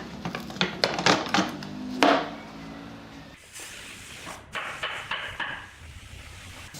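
Workshop hand work: a run of sharp knocks in the first two seconds or so, then lighter clinking and clattering of tools or parts.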